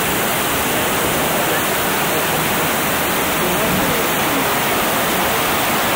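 Fast river rapids: white water rushing over rocks in a steady, loud, unbroken rush.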